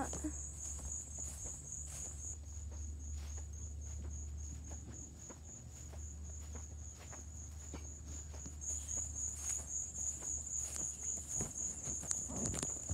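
Insects, likely crickets, chirping in an even high-pitched pulse several times a second without a break, over a steady low rumble.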